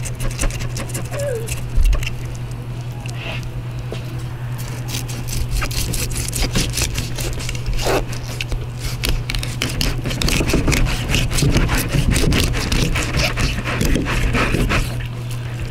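Fillet knife scraping the scales off a carp on a plastic table, a rapid run of rasping scrapes and clicks that gets busier after about five seconds, then the blade cutting into the fish. A steady low hum sits underneath.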